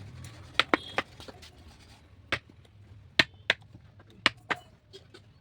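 About eight sharp knocks, spaced irregularly, from hand work on wood at a carpenter's bench.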